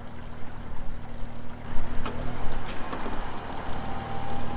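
An engine runs steadily while an electric recovery winch pulls the mud-stuck pickup through wet sand, with water trickling. A few clicks come about two seconds in, and a steady whine sets in about three seconds in.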